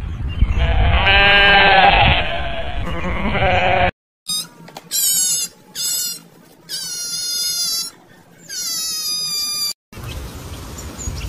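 A mountain goat bleats once, about a second in, over a low rumble. After a cut come five short, shrill, high-pitched animal calls, then faint hiss.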